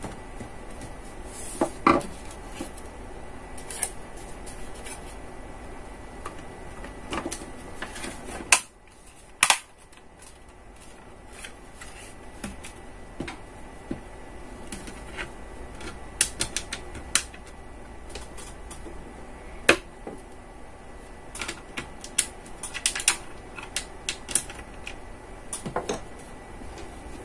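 Irregular clicks and taps of a plastic Wi-Fi router case and a screwdriver being handled as the router is closed up, over a steady faint hum.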